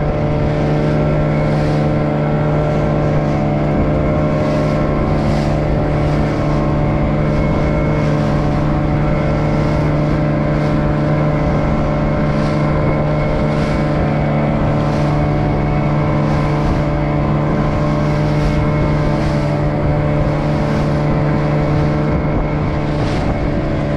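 Fishing boat's engine running steadily while the boat is under way, with a hiss that swells about every second or so.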